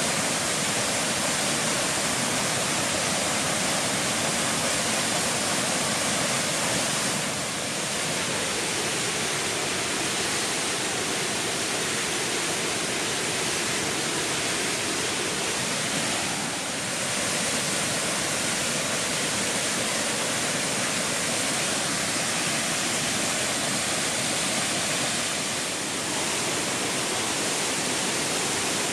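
A waterfall pouring in a steady, full rush of falling and splashing water, dipping slightly three times.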